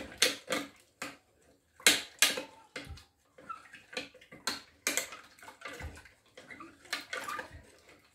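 A spoon stirring water with dissolved yeast and sugar in a plastic measuring jug: irregular taps of the spoon against the jug's sides, with a little splashing of the liquid.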